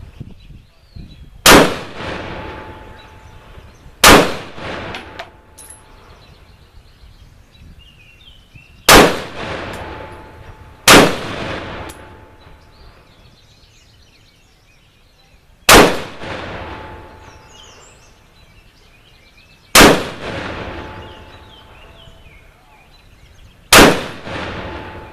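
A 10.5-inch-barrel AR-15 pistol firing 55-grain 5.56x45mm full metal jacket rounds: seven single, deliberately paced shots two to five seconds apart. Each is a sharp crack followed by a fading echo.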